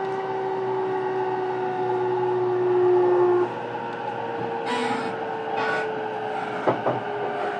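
Interior running sound of an E233-series electric train motor car: a steady traction-motor whine over rail and wheel noise cuts off abruptly about three and a half seconds in. A slightly higher motor tone then carries on, slowly falling in pitch, with two brief hisses and a sharp click near the end.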